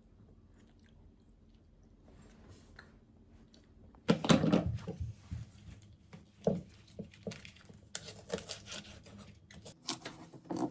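Close-up eating sounds: irregular chewing and crunching with small clicks, starting about four seconds in after a quiet stretch.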